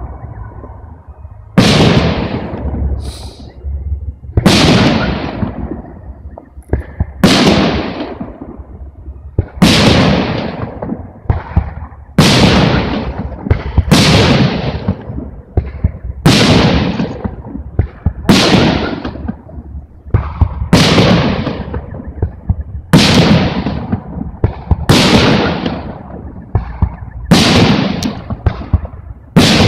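Aerial firework shells bursting, a sharp boom about every two seconds, each trailing off in a long rolling echo.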